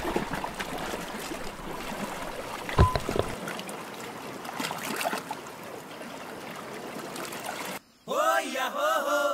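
Rushing, splashing seawater and surf noise, with one sharp thump about three seconds in. Near the end, after a brief moment of silence, a chanted song starts.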